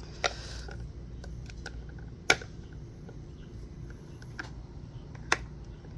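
Sharp clicks and light taps of a Toyota Camry radiator fan assembly and its bolt being handled while the bolt is checked for tightness, three louder clicks among scattered faint ticks. A steady low hum runs underneath.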